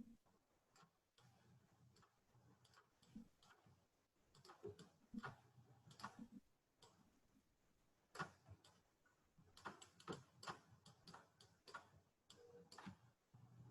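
Faint, irregular computer mouse clicks, coming in clusters over near silence.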